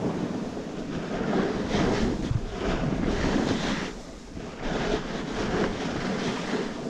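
Wind buffeting the microphone at riding speed, with swells of hiss from a snowboard sliding and carving over packed snow, easing off briefly about four seconds in.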